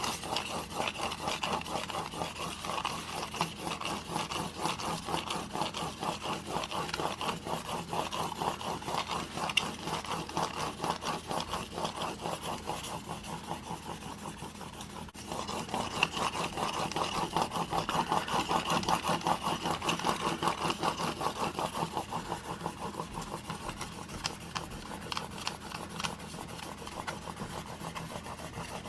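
Steel single-bevel broadhead held in a roller sharpening guide, stroked rapidly back and forth on a 2000-grit diamond sharpening plate: a steady, rhythmic scraping. It stops briefly about halfway, then resumes louder.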